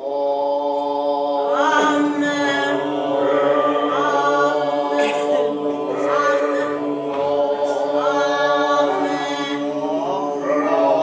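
A group of voices chanting a long, held "Om" together, with a steady low drone underneath and voices swooping up in pitch every couple of seconds.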